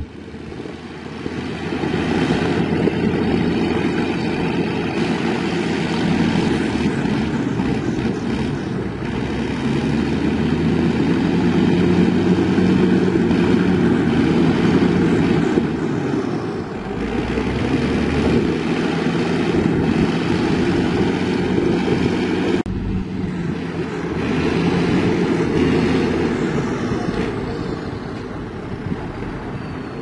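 Shantui SD16E crawler bulldozer's diesel engine running steadily as the machine drives, rising and falling in loudness as it works, with an abrupt jump in the sound about three-quarters of the way through.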